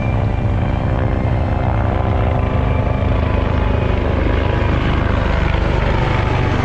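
Helicopter flying over, a steady rotor and engine noise with a fast low pulsing and a hiss that thickens as it goes.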